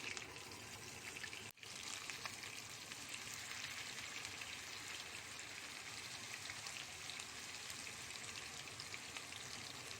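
Pieces of meat searing in hot corn oil and butter over very high heat, a steady crackling sizzle. The sound cuts out briefly about one and a half seconds in.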